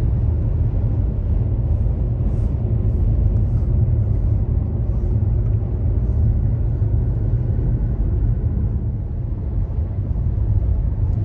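Steady low rumble of road and tyre noise inside a car's cabin as it coasts down a long steep grade.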